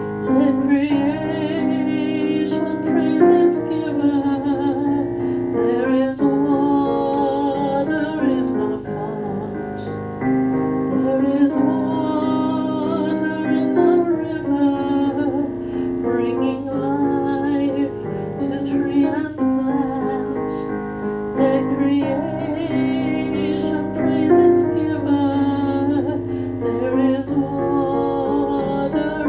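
A voice singing a hymn verse with vibrato on its held notes, over piano accompaniment.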